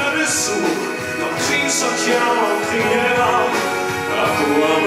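Live orchestra and band playing a loud passage of a French musical song between sung lines, with several bright crashes.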